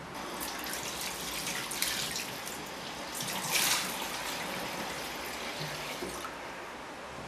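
Tap running into a bathroom sink, with splashing as water is scooped onto a face, the loudest splash about three and a half seconds in.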